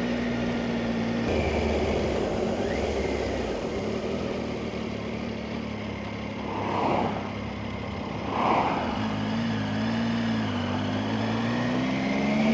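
Motorcycle engine running under way, heard from the bike itself with wind and road noise. Two brief swells of noise pass about seven and eight and a half seconds in. Near the end the engine pitch climbs as the bike accelerates.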